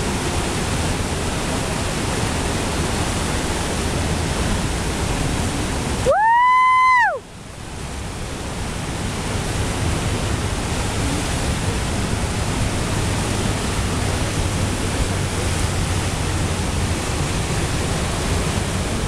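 Steady rush of churning whitewater at a river standing wave. About six seconds in, a loud pitched tone lasts about a second, rising, holding and then falling away; the water noise drops out under it and swells back over the next couple of seconds.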